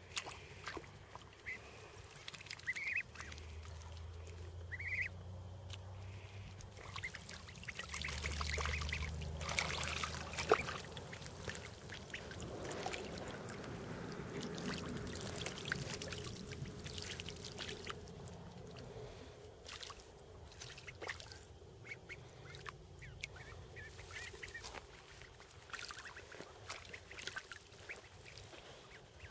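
Young ducks splashing and bathing in shallow muddy water, the splashing heaviest in the middle stretch and easing off toward the end. A few short, high, rising calls from the ducklings come in the first few seconds.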